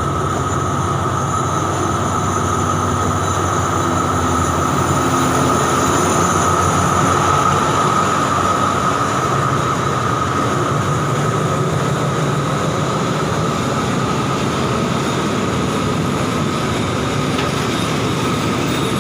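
Passenger train running steadily: a continuous rumble with a steady high whine over a low drone.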